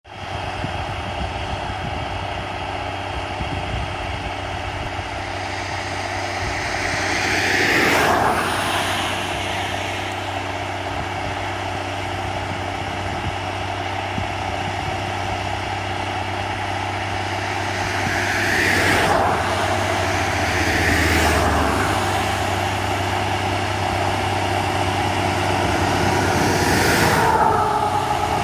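Rába 250 tractor's diesel engine running steadily under load, pulling a tillage implement, heard from a distance. Three times a louder whoosh swells and fades, about 8, 19 and 27 seconds in.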